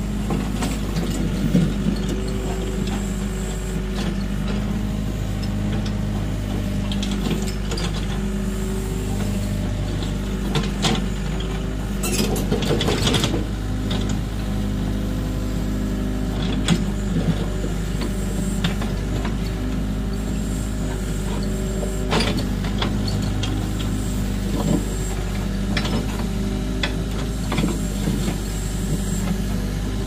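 LiuGong hydraulic excavator working its boom and bucket: the diesel engine runs steadily, its note shifting under hydraulic load, with scattered clanks and knocks and a louder rasping burst around twelve seconds in.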